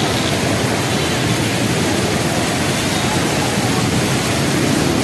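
Heavy monsoon rain pouring in a loud, steady hiss, with traffic on the wet road.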